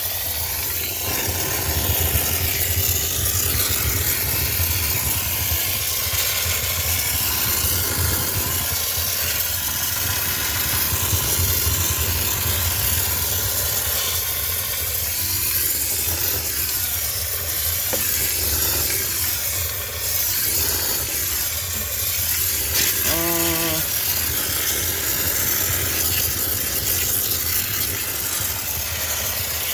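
High-pressure steam cleaner hissing steadily as it sterilizes a sneaker washing machine, over the low steady hum of its machine. A short tone sounds once, about two-thirds through.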